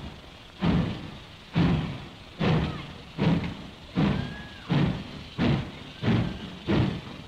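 Ja-class steam locomotive No. 1259 starting away, its exhaust chuffing about nine times, the beats quickening from roughly one a second to about one and a half a second as it gathers speed.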